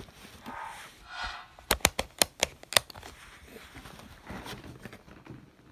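A quick run of about six sharp plastic clicks in about a second, from a novelty 'easy' push button being handled, with faint rustling around them.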